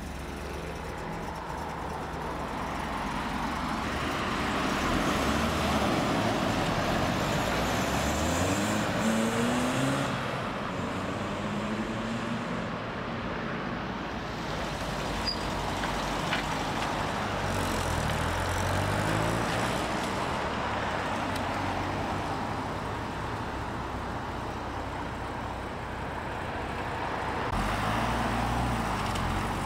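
Cars pulling away one after another on a wet road, led by a Peugeot 205 GTi hatchback, and with a Mk3 Volkswagen Golf near the end. Their engines rise in pitch several times as they accelerate through the gears, over a steady hiss of tyres on wet tarmac.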